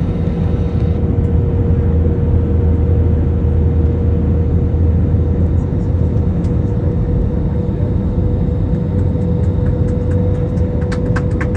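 Airbus A320neo cabin noise in flight: a steady low rumble of airflow and the Pratt & Whitney geared-turbofan engines, with a constant mid-pitched whine running through it.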